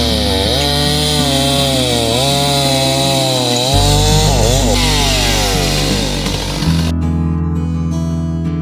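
Chainsaw running and cutting, its engine pitch repeatedly rising and falling, under acoustic guitar music. About seven seconds in the saw cuts off abruptly and only the guitar music remains.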